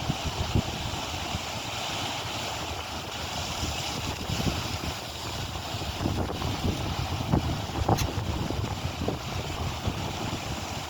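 Wind buffeting the microphone: a steady rumbling rush of noise, with a few small clicks, one sharper about eight seconds in.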